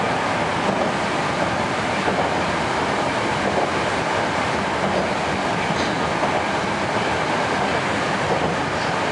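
Moscow metro 81-765/766/767 train running at speed, heard from inside the passenger car: a steady rumble of wheels on rails.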